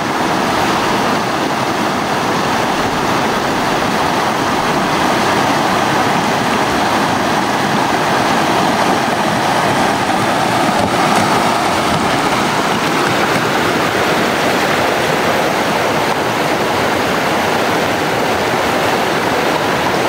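River rapids: fast water rushing steadily over and around rocks.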